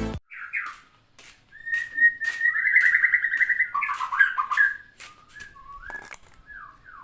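Cat meowing: a few short falling meows, then one long wavering meow lasting about three seconds, then more short falling meows near the end, with scattered clicks.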